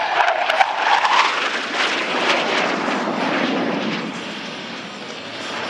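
A-4 Skyhawk jet flying a low, fast pass with its turbojet engine roaring. A whine rises and then drops in pitch as the jet goes by, loudest in the first two seconds. It gives way to a deeper rumble that fades as the jet climbs away.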